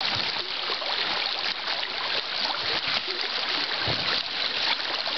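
River water rushing and babbling through a shallow riffle over a fallen-tree jam, a steady hiss of flowing water, with a dull knock about four seconds in.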